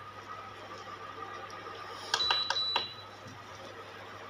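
Stirring in a metal kadai: a quick run of four or five sharp clicks about two seconds in, with a brief high ringing tone under them, over a faint steady hum.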